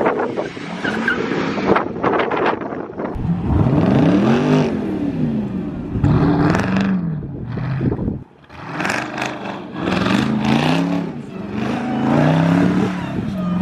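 Car engine revving up and falling back, several times in a row.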